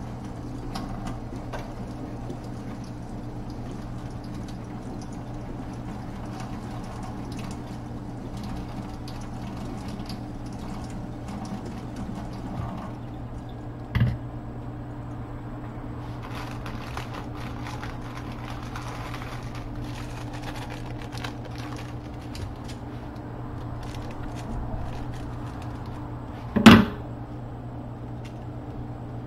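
Steady low hum of a kitchen with light clatter of food preparation. About halfway through, a knock as a glass bowl of cherry tomatoes is set on the wooden cutting board; near the end, a second, louder knock.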